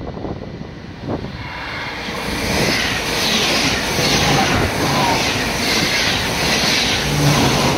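NS ICM(m) intercity electric multiple unit passing close by at speed while accelerating, around 120 km/h: a rush of wheels on rail and air that builds over the first couple of seconds and then stays loud, with a regular pulsing about once a second as the carriages go by.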